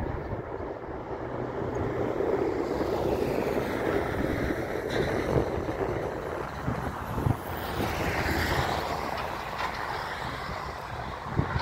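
Jet airliner climbing out just after takeoff: a steady rumble of its engines at takeoff power, strongest a few seconds in, with a few short thumps.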